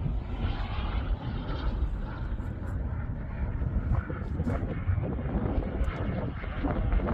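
KingTech K102 turbine of a Boomerang Ranger RC jet in flight: a steady jet rush heard from the ground, with wind rumbling on the microphone.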